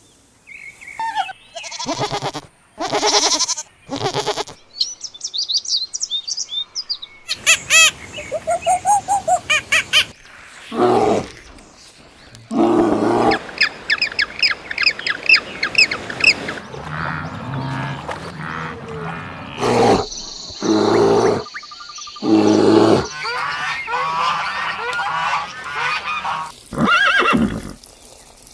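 A rapid series of different animal calls, farm animals and birds, one after another with abrupt changes between them.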